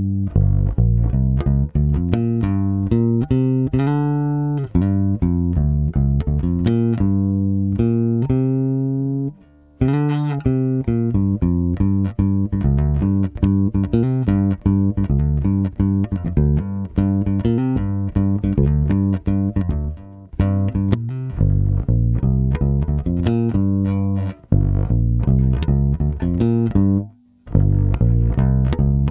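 Electric bass with Tom Marcel vintage Mustang pickups and GHS Brite Flats strings, played solo through a Phil Jones PE5 DI and a Seymour Duncan Studio Bass Compressor. It plays a continuous line of plucked notes, pausing briefly about nine seconds in and again near the end.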